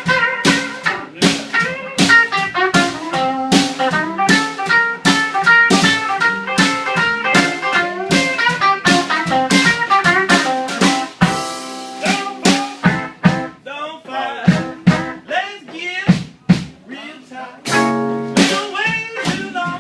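Small band playing blues live: guitar playing a line of notes over a steady beat on the drum kit, with a few held chords along the way.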